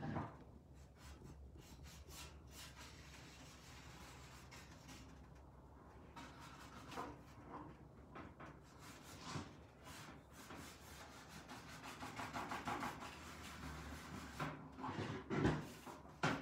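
Paint brush scrubbing and dabbing a little chalk mineral paint onto a metal bucket in a run of short, quick strokes.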